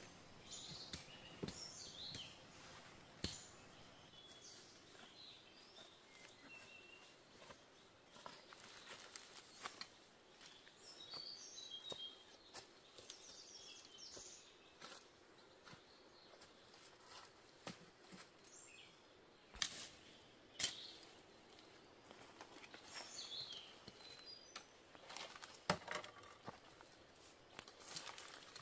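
Faint forest ambience with birds chirping now and then, and scattered clicks and rustles in dry leaf litter from footsteps and handling, with a few louder knocks in the second half.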